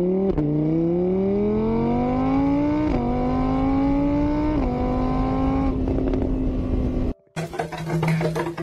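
Electronic engine sound from a battery-powered toy scooter, a revving tone that rises in pitch, drops back a few times like gear changes, then holds steady. It cuts off about seven seconds in and gives way to a steady low hum with clicking.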